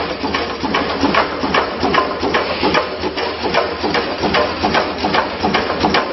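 Automatic credit card packing machine running, its feed and packing mechanisms making a steady clatter of clicks and knocks, several a second, over a motor hum.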